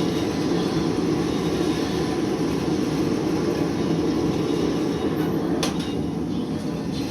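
Blacksmith's forge running with a steady low roar, and a couple of sharp clicks late on.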